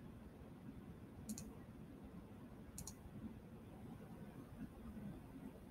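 Two quick double clicks, about a second and a half apart, from working a computer during a screen-recorded lesson, over quiet room tone.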